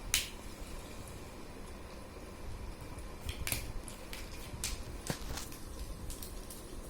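Plastic connector pens clicking as they are snapped together and handled, a scattering of short sharp clicks with the loudest just after the start.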